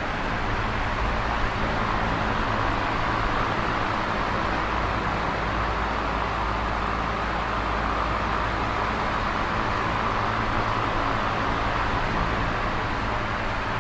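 Electric fan running steadily: an even rush of moving air with a low motor hum beneath it.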